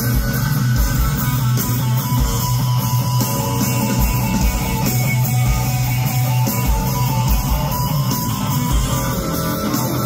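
Live rock band playing through a concert PA, heard from the crowd: guitar over bass and drums.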